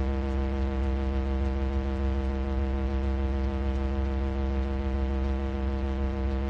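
Harsh electronic noise music: a loud, steady synthesized drone with a heavy low hum and a stack of held buzzing tones, fluttering quickly and evenly.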